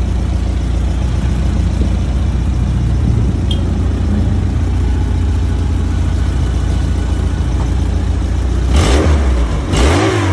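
Suzuki Jimny Katana's F10A four-cylinder carburetted engine idling steadily and smoothly after an engine overhaul, with no ticking knock. Near the end the throttle is blipped twice, the engine revving up and dropping back each time.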